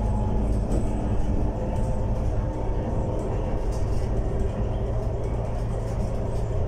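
Steady low drone of an Iveco Urbanway 12M city bus heard from inside the passenger cabin, engine and road rumble while the bus runs along.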